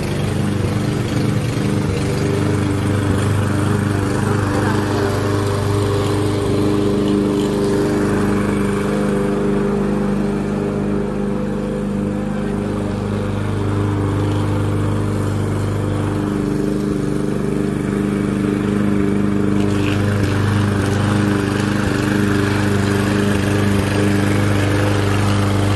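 Walk-behind gas push lawn mower running at a steady engine speed while cutting grass.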